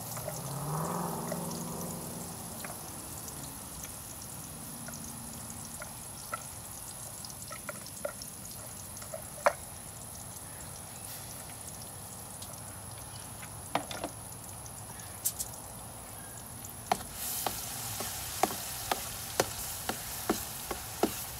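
Processed shallot, onion, ginger and garlic paste sizzling as it fries in hot canola oil in a large aluminium wok. A few scattered knocks come through the middle. From about three-quarters of the way in, a metal spatula clacks against the wok about twice a second as the paste is stirred.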